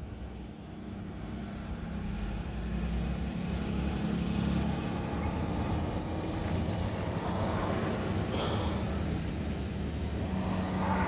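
Road traffic passing, with a steady rumble that builds over the first few seconds and swells again near the end. A short hiss comes about eight and a half seconds in.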